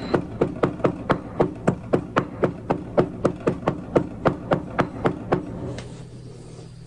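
Cardamom being pounded with a white stone pestle in a stone mortar: sharp, even knocks, about four a second, that stop about a second before the end.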